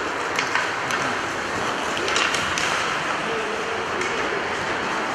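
Ice hockey play on an indoor rink: a steady hiss of skates on the ice, with several sharp clacks of sticks and puck.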